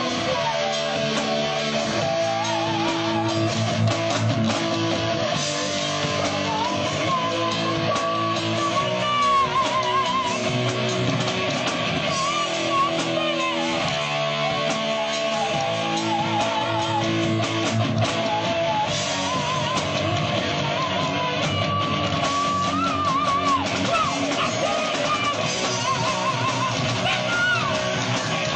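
Live rock band playing: electric guitars and drums at full volume, with a wavering, vibrato-laden melody line on top.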